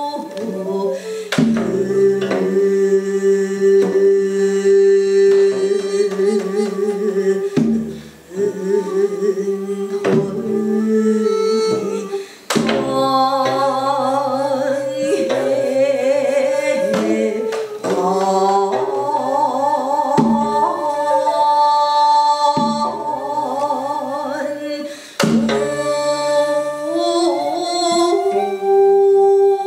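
A woman singing a Korean gasa in the slow jeongga style: long held notes with a slow, wide vibrato and sliding ornaments, over sustained instrumental accompaniment. A few sharp drum strokes fall every few seconds.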